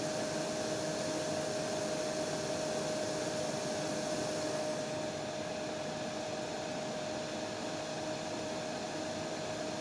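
Hair dryer running steadily: rushing air over a steady motor whine. The high hiss dulls slightly about halfway through.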